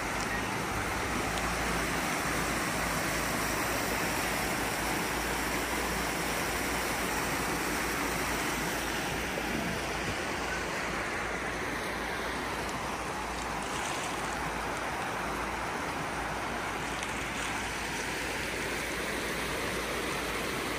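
Rain-swollen mountain stream rushing over rocks, a steady, unbroken wash of water noise.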